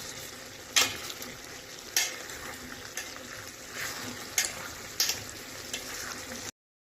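A steady sizzling hiss with a few sharp clicks, like a utensil knocking against a pan or dish; the sound cuts off suddenly near the end.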